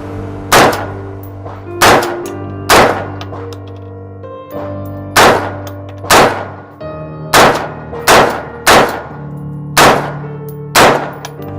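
Smith & Wesson M&P AR-15 rifle fired semi-automatically: ten sharp shots at an uneven pace, roughly one a second, each with a short ringing echo.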